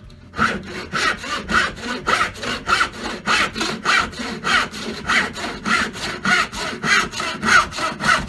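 Hand saw cutting wood in quick, even back-and-forth strokes, about three a second.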